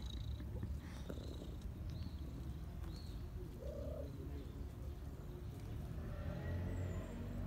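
Domestic cat purring steadily, a continuous low rumble, with faint bird calls in the background.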